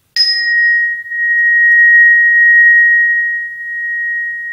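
A sonotest sound instrument struck once with a small mallet, ringing a single high, pure tone that keeps on sounding; a brighter overtone dies away within the first second. Its loudness dips twice as it is moved, which the demonstrator takes for the instrument passing through a layer of his energy field.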